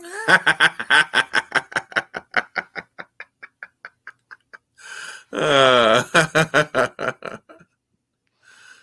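Men laughing: a run of quick laugh pulses, about four a second, fading away over some four seconds, then a second, louder burst of laughter with a falling pitch a little after five seconds in.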